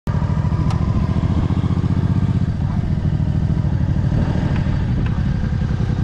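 Suzuki Intruder Classic 400's V-twin engine running steadily at low revs while the bike is ridden slowly, with an even, pulsing throb.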